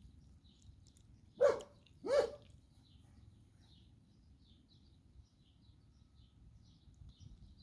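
Two short, loud animal calls about two-thirds of a second apart, with faint bird chirps scattered throughout.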